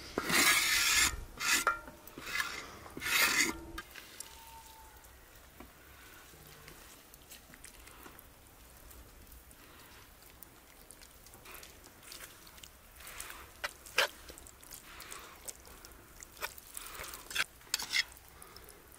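A wooden spatula scraping fried onions across a wide iron pan in about three rough strokes over the first few seconds. After that it is much quieter, with scattered light clinks and taps of a ladle and dishes.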